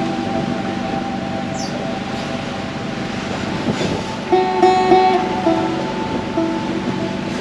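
Background music led by a guitar: held notes, with a new group of plucked notes about four seconds in.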